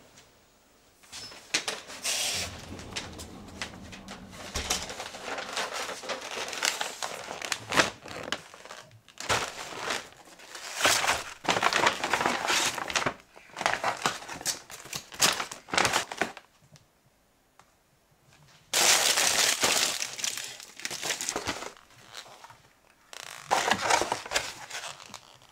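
Paper takeaway bag and aluminium foil wrapping rustling and crinkling in irregular bursts as delivered food containers are unpacked by hand, with a short pause about two-thirds of the way through.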